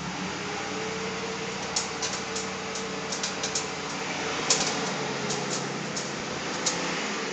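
Ford Crown Victoria making an odd noise: a steady mechanical hum with irregular sharp clicks or ticks over it, about one or two a second, the loudest about four and a half seconds in.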